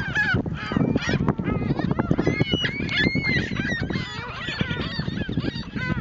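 A flock of seagulls calling, many short squawking calls overlapping without a break.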